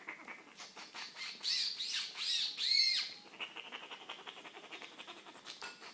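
High-pitched squeals, most likely a young child's, three or four quick rising-and-falling ones about one and a half to three seconds in, over light tapping clicks.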